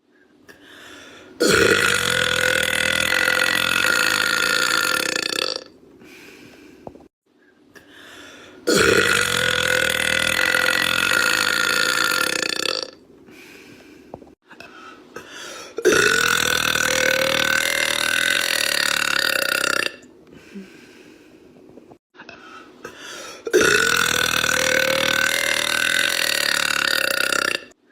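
A woman belching: four long, drawn-out burps of about four seconds each, a few seconds apart.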